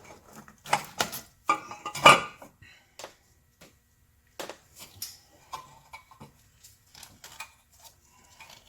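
Metal parts and tools clinking and clattering as they are handled and set down, with a cluster of louder clanks about one to two seconds in, then lighter scattered clicks.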